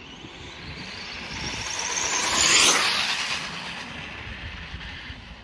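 Electric RC speed-run car, an Arrma Infraction with a Castle 1721 brushless motor, making a high-speed pass: a motor whine and tyre rush that builds to a peak about two and a half seconds in, then fades as it goes away.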